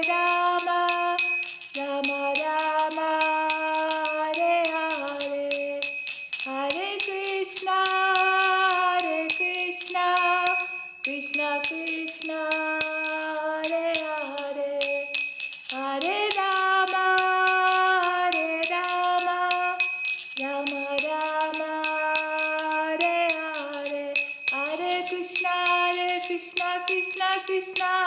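Devotional kirtan: a melody in phrases of held notes with upward slides, over small hand cymbals (kartals) struck rapidly and ringing throughout.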